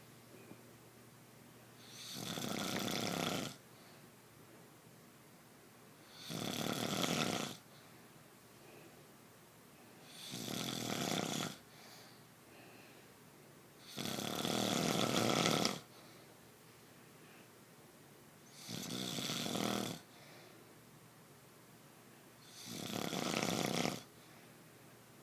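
A sleeping person snoring in a steady rhythm. There are six snores about four seconds apart, each lasting a second or so and swelling before it stops, with quiet between.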